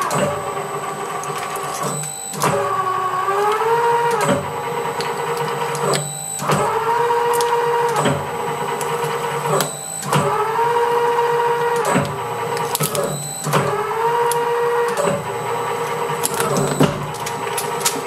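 Twin-shaft shredder running with a steady whine that cuts out and starts again every two seconds or so, its pitch rising each time it picks up speed, as the steel cutters crunch the last fragments of a toy with scattered sharp cracks.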